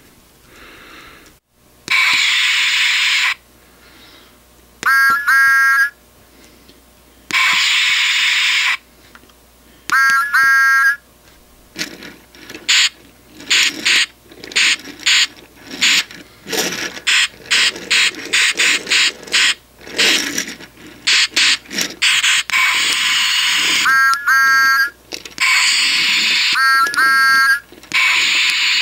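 A Thomas the Tank Engine Lights & Sounds Take Along toy engine playing its recorded steam-locomotive effects through its small built-in speaker, set off by a press on top of the toy. A burst of steam hiss and a short whistle toot come round several times, with a run of quick chuffing in the middle.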